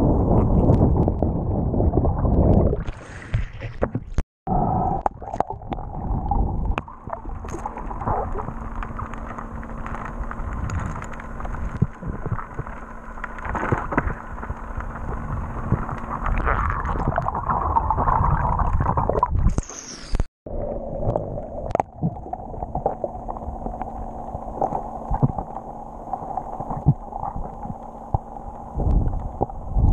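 Muffled underwater sound picked up by a camera in its waterproof housing: water gurgling and sloshing around it as a swimmer moves and dives, over a steady low hum.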